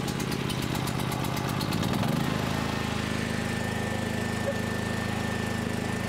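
Resanta BG 11000 E petrol generator's engine running on its first start, just after being started with the key. About two seconds in the note settles into steadier, even running, and a faint high whine comes in.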